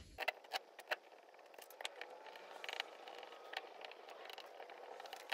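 Faint clicks and light scraping of a hand screwdriver turning the cover screws back into a Keihin jet ski carburetor, with a few sharper ticks in the first second.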